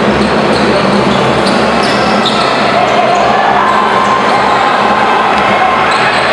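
Live basketball game in a large arena: the ball bouncing on the court under a steady, loud crowd din.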